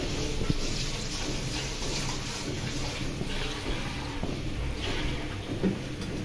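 Thin fish broth with potatoes and tomatoes boiling in a karahi, a steady bubbling and fizzing, with one light click about half a second in.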